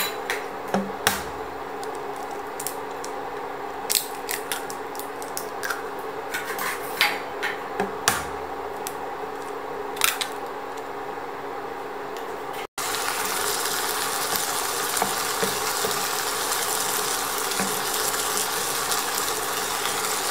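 Hen's eggs being cracked into a nonstick frying pan of cooking pumpkin: a string of sharp shell cracks and taps over a low steady hum from the pan. About two-thirds through, after a brief cut, a steady sizzle of egg frying as it is stirred in with a wooden spatula.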